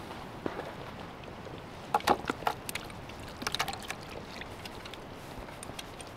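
Oxtail stew poured out of a cast-iron Afghan kazan into a carved wooden platter: chunks of meat and broth plopping and sloshing in, with clusters of sharp knocks and clatters about two seconds in and again about three and a half seconds in.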